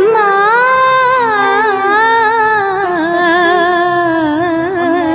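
Background music: a Kannada devotional song about Krishna, with a high voice singing a slow, melismatic line of long held notes that waver in pitch, over a soft, steady instrumental backing.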